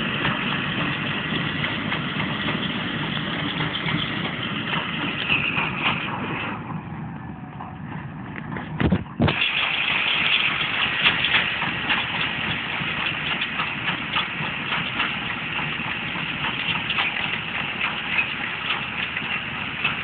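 Tractor engine running steadily as it pulls a hay baler, with rapid clicking from the baler's mechanism. A sharp knock comes about nine seconds in.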